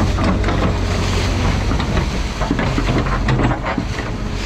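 Excavator's diesel engine running steadily under hydraulic load as its bucket drags through a flooded ditch. Repeated splashes, scrapes and knocks come from the bucket working the water, weeds and silt.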